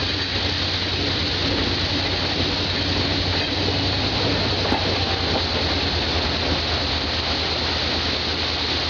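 Train running along water-covered track, its wheels churning through the water: a steady rushing spray over a constant low hum.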